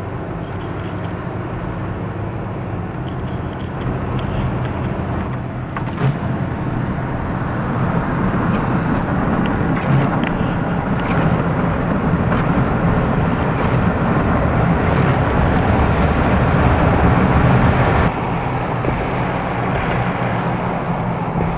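Blizzard wind blowing hard, with gusts buffeting the microphone and a low steady hum underneath. It builds from about a third of the way in and drops off suddenly near the end.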